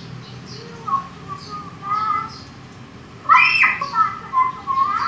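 A high-pitched voice making short squealing sounds, the loudest a little over three seconds in.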